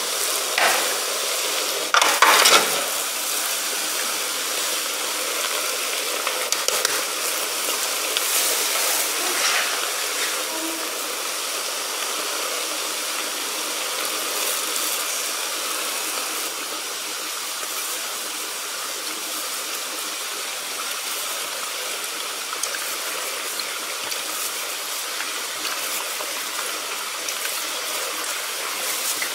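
Steady hiss of water boiling and steaming in an open aluminium steamer pot, with a few short metal clatters about two seconds in.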